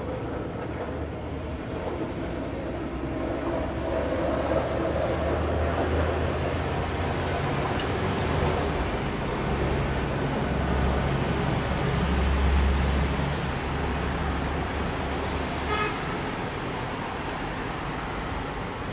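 Steady low rumble of road traffic that swells and eases as vehicles pass, with a brief high tone, like a short toot, near the end.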